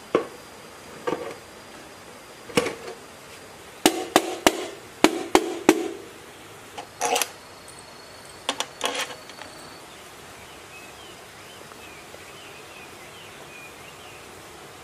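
Metal clinks and knocks of engine parts and bolts being handled and fitted during reassembly of a Changchai ZS1115 diesel engine. The sharp strikes come singly over the first ten seconds, with a quick run of about six between four and six seconds in.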